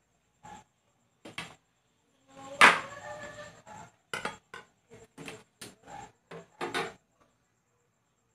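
Kitchen dishes and utensils knocking and clinking in a string of short, separate hits, the loudest about two and a half seconds in, with a brief ring after it.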